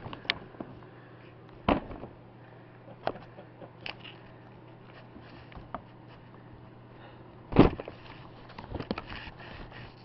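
Handling noise from a handheld camera: a few scattered knocks and clicks, the loudest about seven and a half seconds in, over a steady low hum.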